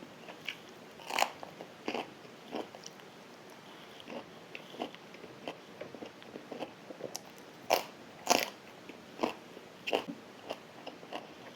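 A person biting and chewing food, with irregular short crunches and mouth clicks; two louder crunches come a little past the middle.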